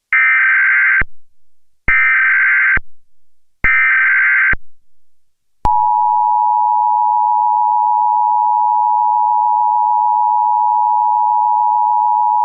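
Emergency Alert System tones: three bursts of SAME header data, each about a second long and about two seconds apart, then the steady two-tone EAS attention signal starting about six seconds in.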